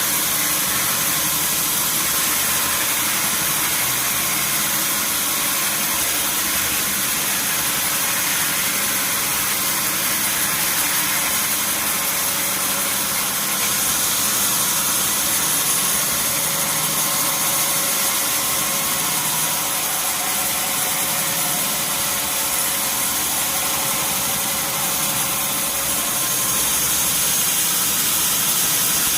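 Sawmill machinery running steadily, a constant mechanical noise with a strong high hiss and no pauses.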